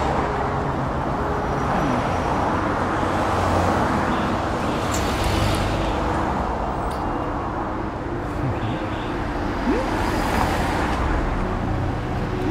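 Steady city traffic noise: the engines and tyres of passing cars.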